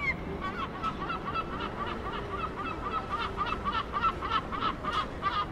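A gull calling: a long run of repeated laughing notes, about four a second, growing louder toward the middle.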